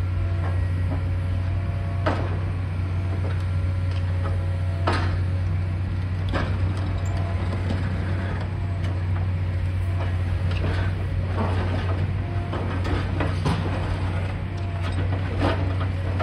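High-reach demolition excavator running with a steady low engine drone. Several sharp cracks and knocks come at irregular intervals as its crusher jaws break into the concrete and metal of the building's roof edge.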